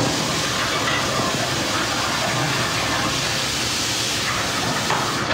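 Steady, even hiss of restaurant background noise.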